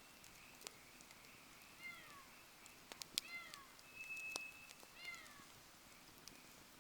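Campfire crackling faintly with scattered sharp pops, the loudest about three seconds in. Over it, short falling calls from an animal come three times, with one held high whistle in between.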